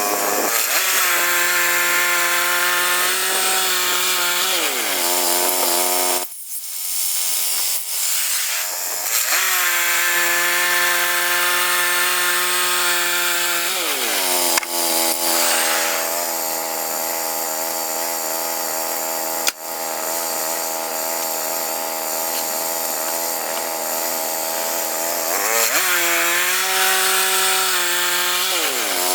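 Woodland Mills HM122 portable bandsaw mill working through a log: its small petrol engine runs steadily with the band blade cutting, the engine dropping in pitch a few times and briefly falling away about six seconds in before revving back up.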